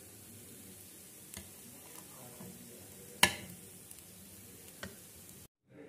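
A metal spatula scrapes and knocks against an aluminium pan while sooji halwa is served out, over a faint steady hiss. There are a few light clicks and one sharp clank about three seconds in. The sound cuts off abruptly just before the end.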